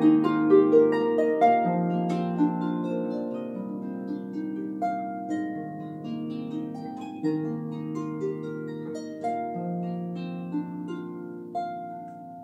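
Solo harp, plucked: a melody over held low bass notes, the playing gradually growing softer.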